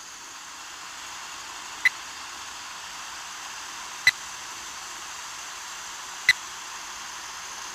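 Radio-telemetry receiver hissing with static, with a short beep about every two seconds, three in all: the pulse picked up from the rattlesnake's radio transmitter.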